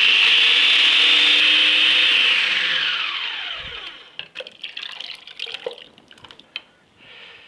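Food processor motor running at full speed puréeing soup, then switched off about two seconds in and winding down with a falling whine. Afterwards, soft clinks and the purée trickling out of the processor bowl into a glass measuring jug.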